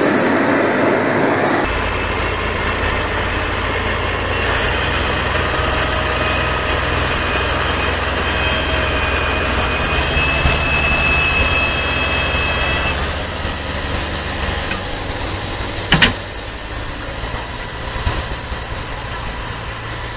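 Heavy diesel machinery engine running steadily with a high whine over its low rumble. It eases to a lower level about two-thirds through, and a single sharp knock sounds a few seconds before the end. A different engine recording is heard briefly at the very start.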